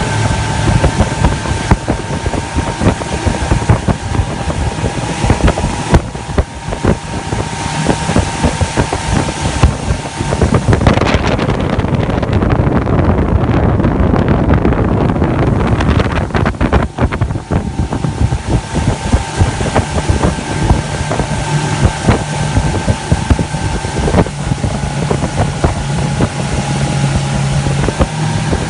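Mercury Verado 200 outboard motor running steadily on a boat, with wind buffeting the microphone. About ten seconds in, a louder rush of wind and water drowns out the engine's steady tone for several seconds, and then the tone comes back.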